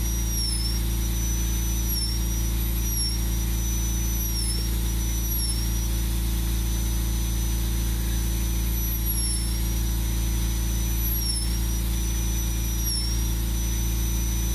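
High-speed rotary carving tool with a fine burr, running with a steady high whine while it carves wood. The pitch dips briefly every second or two as the burr bites into the wood, over a constant low hum.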